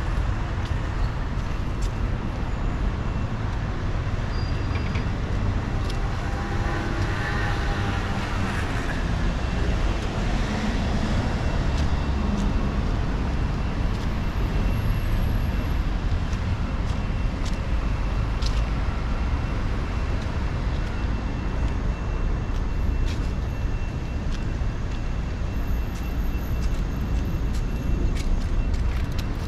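City street ambience: a steady low rumble of road traffic, with an engine passing around seven seconds in, its pitch rising and falling.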